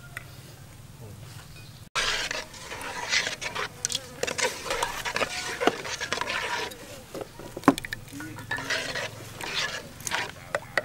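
A metal spoon stirring and scraping through a thin peanut sauce in a metal pot, with quick clinks of spoon against pot. The stirring starts suddenly about two seconds in, after a quieter stretch.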